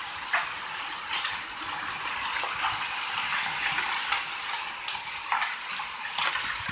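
Heavy thunderstorm rain pouring down as a steady hiss, with scattered sharp ticks and clinks from hailstones striking hard surfaces.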